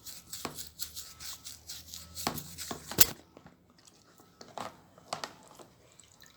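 Irregular scrubbing and scraping as a small area of an old air cleaner is cleaned by hand, with one sharp knock about three seconds in. After that it is quieter, with a few light clicks.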